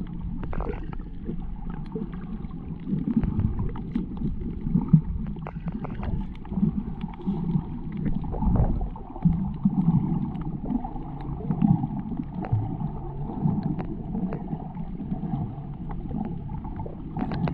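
Muffled water sloshing and gurgling heard through an underwater camera, with scattered small clicks.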